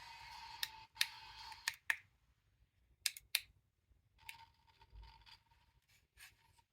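Faint, thin audio from a cheap FM wireless earphone's tiny speaker, a steady tone over hiss that cuts out about a second in and comes back briefly later, the sign of very poor FM reception. Several sharp plastic clicks break in between.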